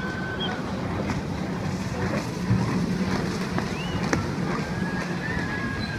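Wind buffeting the microphone over the steady drone of a distant jet ski engine, which grows a little stronger in the middle. A few faint, thin high whistling glides sound over it.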